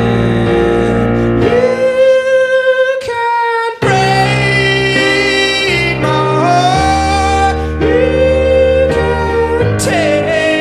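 A man singing long held notes into a microphone over chords on an electric keyboard, with a short break in the music just before four seconds in.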